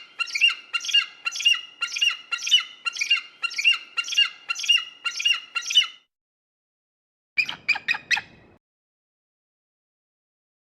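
A bird of prey calling in a fast series of sharp repeated cries, about two a second for some six seconds. About seven seconds in, it gives a short, quicker burst of about five cries.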